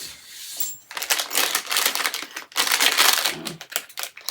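Packaging being crinkled and rustled in handling while sorting flat-pack hardware, in two stretches with a short break about two and a half seconds in.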